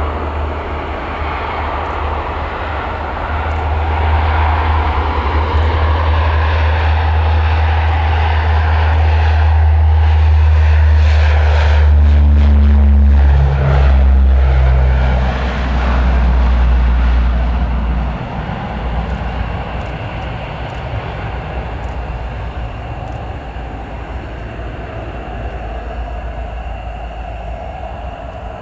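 Lockheed P-3C Orion's four Allison T56 turboprops at takeoff power: a deep propeller drone that swells to its loudest as the aircraft lifts off and passes, its pitch dropping as it goes by. About two-thirds of the way through it falls off and keeps fading as the aircraft climbs away.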